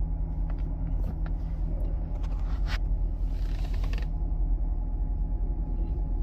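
Steady low engine rumble of a 6th-generation Chevrolet Camaro, heard from inside the cabin. A few light clicks come in the first half, then a brief rustle about three seconds in.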